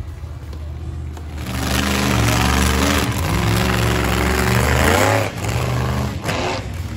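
Monster truck engine revving hard. It swells about a second and a half in, rises and falls in pitch a few times, then eases off about five seconds in.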